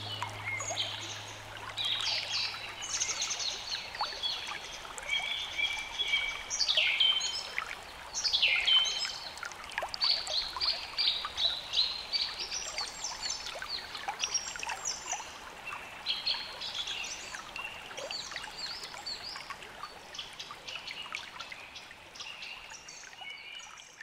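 Recorded ambience of many birds singing and chirping in quick overlapping phrases over a steady trickle of running water. A low held note from the music track dies away in the first few seconds, and the whole ambience fades down near the end.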